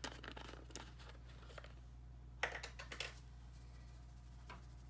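Light clicks and taps from hands moving raw steaks around in an enamel roasting pan: a cluster in the first second, a louder burst around two and a half seconds in, and a single tap near the end, over a faint steady hum.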